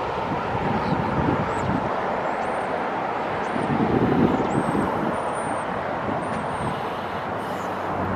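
Steady rush of distant highway traffic, with wind buffeting the microphone and a run of faint high chirps in the middle.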